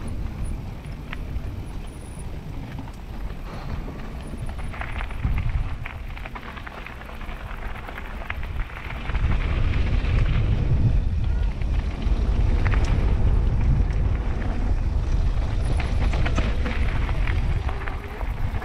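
Wind buffeting an action-camera microphone, mixed with the rattle and tyre noise of a mountain bike riding down a trail, with scattered sharp clicks. The wind rumble grows louder about nine seconds in.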